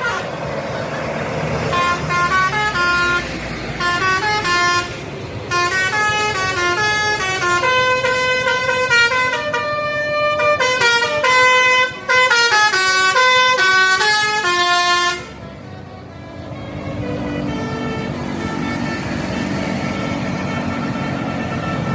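Telolet bus horn, a multi-tone musical air horn, playing quick runs of stepped notes up and down in a tune. It stops about fifteen seconds in, leaving the quieter steady sound of road vehicles running.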